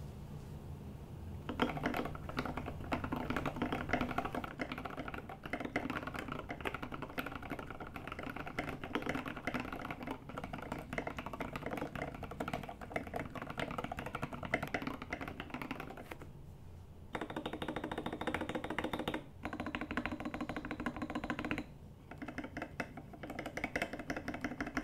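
Steady fast typing on a Rama U80-A mechanical keyboard with linear switches and SA-profile keycaps, with a brief pause about two-thirds of the way through and a couple of short breaks after it.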